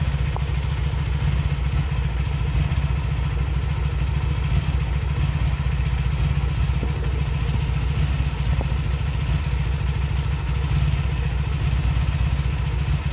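Honda Magna VF750C's liquid-cooled V4 engine idling steadily, still cold early in its warm-up.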